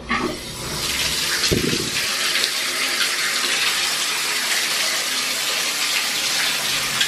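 Bathtub tap turned on, water pouring from the spout onto the bottom of an empty tub. It starts suddenly and then runs steadily, with one short low thump about one and a half seconds in.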